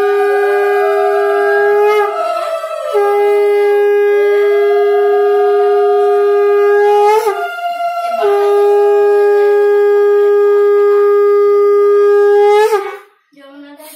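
A conch shell (shankha) is blown in long, steady, loud blasts. One blast ends about two seconds in, a second runs from about three to seven seconds, and a third runs from about eight seconds to almost the end. Each blast closes with a short upward break in pitch, and a fainter wavering tone sounds alongside.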